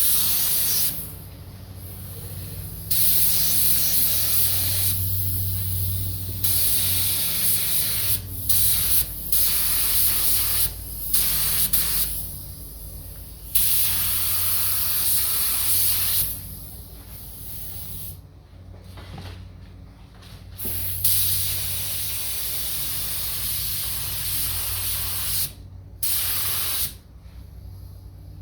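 Spray of touch-up finish hissing on and off in bursts of a few seconds with short gaps, as the repaired dent area is refinished and blended in. A steady low hum runs underneath.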